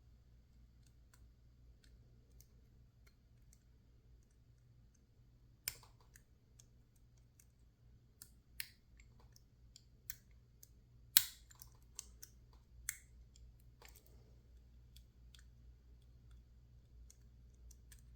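PacLock 410 Pro padlock being picked: scattered small clicks and taps of the pick and tension wrench working in the lock, irregular and a few seconds apart, the loudest about eleven seconds in.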